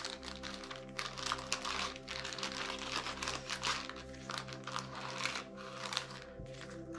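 Plastic baggies and card game components crinkling and rustling as they are handled, over soft, steady background music.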